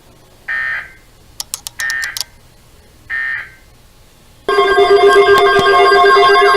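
Three short bursts of EAS SAME data tones, the digital end-of-message code that closes a NOAA Weather Radio alert, each about half a second with about a second between them, and a few sharp clicks between the first two. About four and a half seconds in, a much louder sound starts: several steady tones with a fast siren-like warble.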